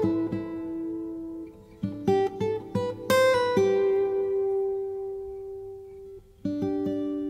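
Background music of acoustic guitar: single plucked notes and chords that ring out and fade, with a brief lull about six seconds in before a fresh chord is struck.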